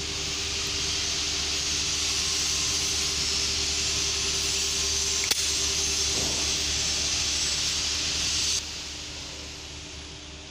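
A steady, loud hiss of escaping air or spray that stops abruptly about eight and a half seconds in, over a constant low hum, with a single click around the middle.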